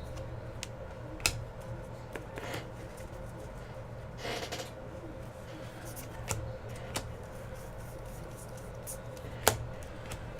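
Baseball trading cards and foil pack wrappers being handled and sorted: scattered soft clicks and a brief rustle about four seconds in, over a steady low hum.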